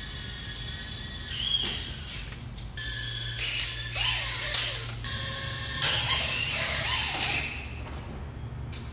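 Drone's brushless motors whining in several surges, the pitch rising and falling with throttle, over a steady low hum.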